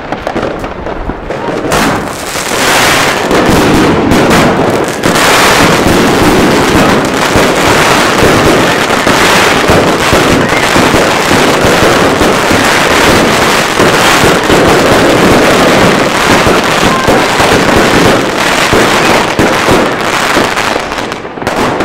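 A 25 mm, 288-shot consumer firework cake firing, a dense rapid stream of launches and bursts with no gaps. It builds about two seconds in and eases off just before the end.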